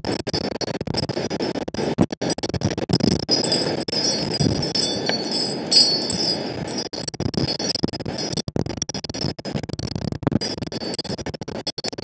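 Strong wind buffeting the bird-feeder camera's microphone in irregular gusts, with a few light clinks and scratches.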